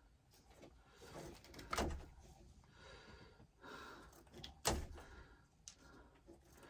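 A few faint knocks and clicks of wiring and parts being handled, the sharpest about two thirds of the way through.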